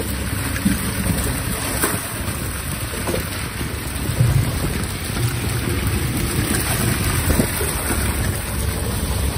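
Sardines and seawater gushing from the 6-inch hose of an Aqua-Life BP60HF fish pump into a plastic fish bin: a steady splashing rush, with a low rumble underneath and scattered small knocks.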